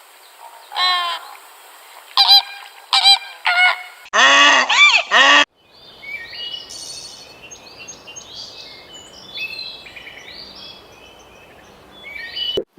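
A bird giving short, harsh honking calls, with a loud run of them about four seconds in, then a spell of fainter, high chirping calls.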